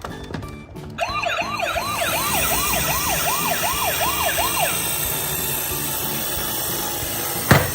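Emergency-vehicle siren in a fast yelp, its pitch sweeping up and down about three times a second for a few seconds, over a steady rushing noise. A sharp knock near the end.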